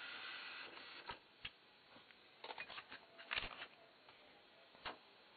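A faint steady hiss cuts off about a second in. Then come scattered light clicks and knocks of hands handling equipment, with a quick cluster of them near the middle.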